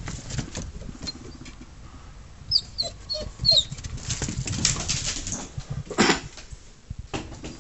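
A dog whimpering in a few short, high whines from about two and a half to three and a half seconds in, then one louder short call about six seconds in.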